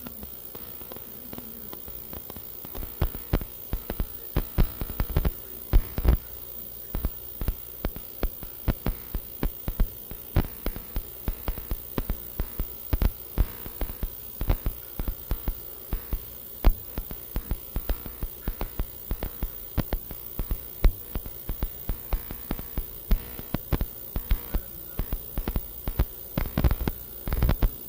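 Irregular soft clicks and taps from a silver box chain being handled and run through the fingers, over a steady hum.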